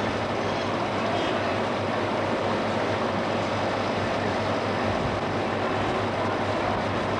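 A steady rumble with a low hum under an even hiss, unbroken.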